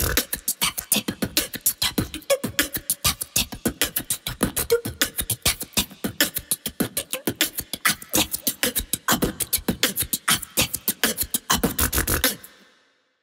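A boy beatboxing into a cupped hand: a fast, steady run of sharp mouth-made percussion beats that fades out near the end.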